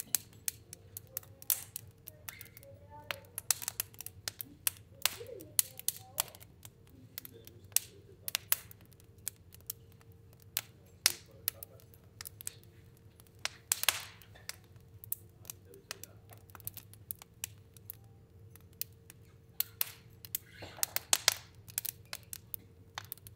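Fire burning in a stove, crackling with irregular sharp snaps and pops, with two brief hissing flares, one about halfway through and one near the end, over a low steady hum.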